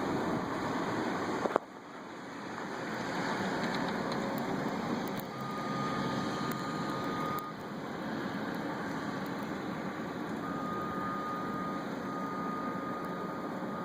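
Kubota compact track loader's diesel engine running under load while pushing snow, with a steady high whine that comes in twice. A sharp click and sudden drop in level come about one and a half seconds in.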